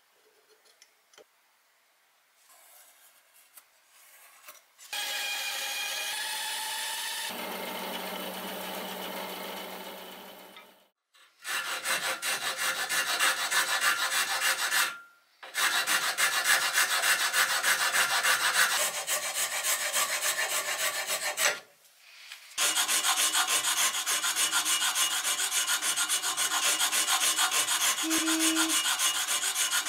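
Hand file rasping across a blue handle-scale blank clamped in a bench vise, in quick repeated strokes, in three runs with short pauses between them. Before the filing, a steady whirring sound changes pitch partway through.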